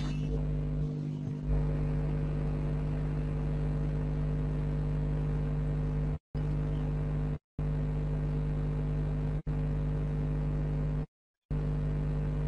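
A steady mechanical drone with a low hum, like a motor or engine running. It cuts out completely four times in the second half, the last gap lasting about half a second.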